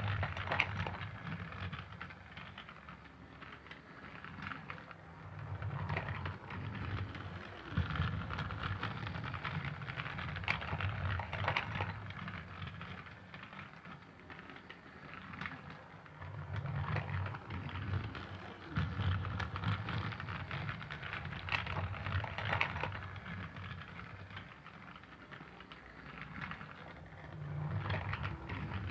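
Toy Thomas the Tank Engine train running on its track: its small motor hums and its wheels clatter. It grows louder and softer in slow waves, as if passing near and then away.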